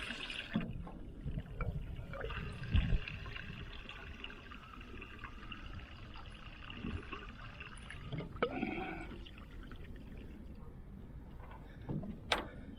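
100LL avgas pouring from a self-serve pump nozzle into a Piper Cherokee 140's wing tank, a steady rush as the tank fills toward full. A few sharp clicks come near the end.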